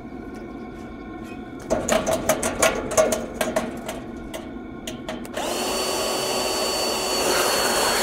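Cordless air blower pushing air through a soot-clogged diesel heater exhaust pipe. A run of short clicks and clatters comes about two seconds in. From about five and a half seconds the blower runs steadily, a rushing whir with a thin high whine.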